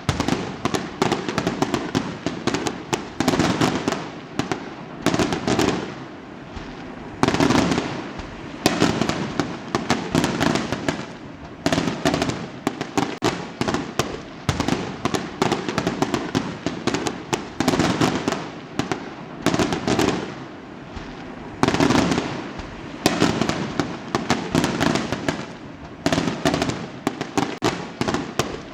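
Fireworks going off in rapid succession: a dense run of sharp bangs and crackles, with louder bursts every second or two.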